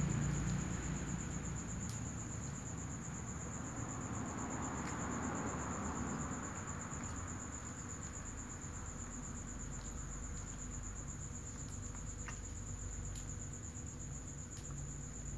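Crickets trilling on one steady high-pitched note, with a low rumble underneath and a few faint clicks.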